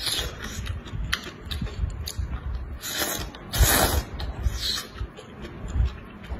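Close-miked eating of noodles in spicy broth: wet chewing and mouth clicks, with one long, loud slurp a little past halfway.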